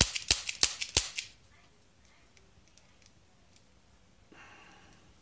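Stainless Ruger Security-Six revolver dry-fired double action in quick succession: the hammer snaps and the cylinder clicks round about three times a second, stopping a little over a second in. This is a test of the action after fitting lighter hammer and trigger springs. Faint handling rustle follows near the end.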